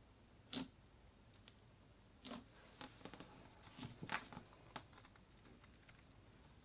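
Slime being handled and pressed, giving faint sticky clicks and squishy pops. A few single pops come first, then a quick cluster of them about three to five seconds in.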